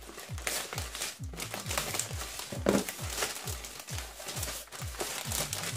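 Plastic mailer bag crinkling and rustling as it is cut with scissors and handled, over background music with a steady low beat.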